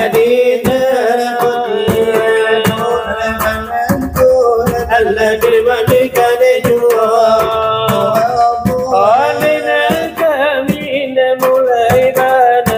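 Salawat dulang: men singing a devotional chant in interlocking, wavering melodic lines while beating large brass trays (dulang) with their hands, a rapid pattern of sharp slaps and taps under the voices.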